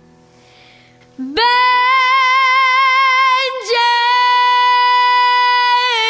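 A young girl singing solo: after a quiet first second she slides up into a long held high note, breaks off briefly about halfway, then holds the note again.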